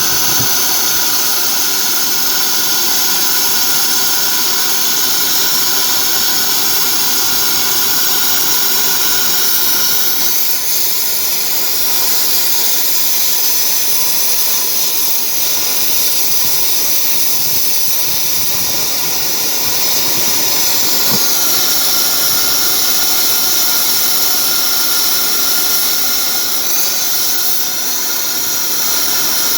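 Loud, steady industrial machinery noise at a conveyor belt repair: a continuous hiss with high-pitched whines running through it, the whine shifting in pitch a few times.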